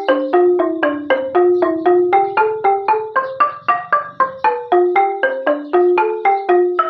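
Cambodian roneat ek, a bamboo-barred xylophone, played with two padded mallets: a steady run of struck notes, about four a second, in a traditional Khmer melody.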